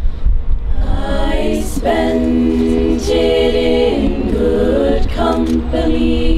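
A cappella group of voices singing slow, sustained chords, with the notes changing about once a second. A steady low rumble of wind on the microphone sits under the singing.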